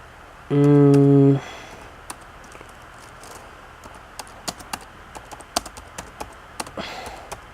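Computer keyboard being typed on: scattered, irregular key clicks. Near the start, a loud steady low tone sounds for about a second.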